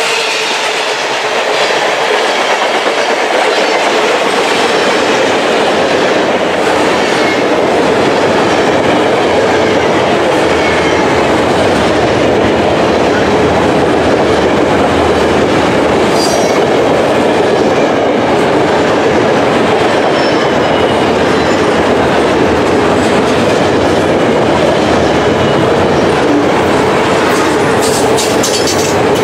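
Freight train of high-sided open-top cars rolling past: a steady, loud rumble of steel wheels on rail, with faint wheel squeal now and then and a run of sharp clacks near the end.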